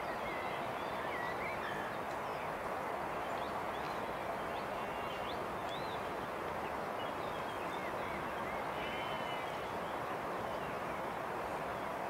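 Steady outdoor background hiss with many faint, short bird chirps scattered through it.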